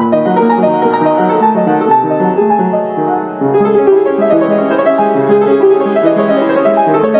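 Background piano music with dense, sustained notes, dipping briefly a little over three seconds in before picking up again.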